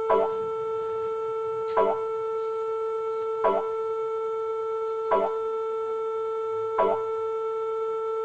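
Greek emergency alert (EAS) alarm sounding through a laptop speaker: a steady siren tone held at one pitch, broken by a short blip about every second and three quarters.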